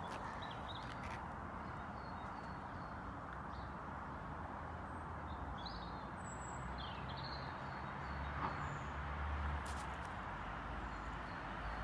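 Steady outdoor background hiss with a few faint, short bird chirps about halfway through. A low rumble on the microphone comes in near the end.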